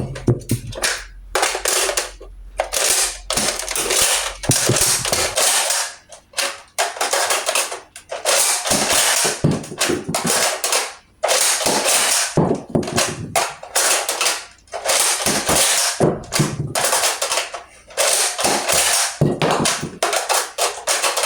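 Nerf Elite Trilogy pump-action dart shotgun being racked and fired over and over: loud plastic slide strokes and spring-air shots in uneven bursts with short gaps.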